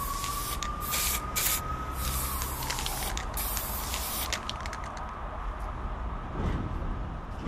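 Aerosol spray-paint can hissing in several short bursts over the first four seconds, followed by a run of faint quick clicks.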